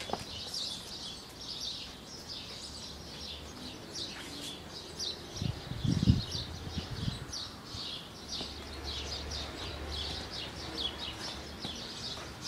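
Small birds chirping continually in quick repeated notes, with a brief low rumbling thump about halfway through.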